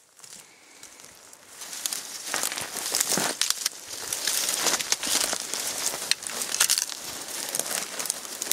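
Footsteps crunching and rustling through dry brush and grass, with many small irregular crackles; the sound starts faint and picks up about a second and a half in.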